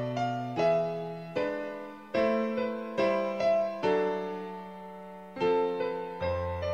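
Slow background piano music: single notes and chords struck about once a second, each left to fade.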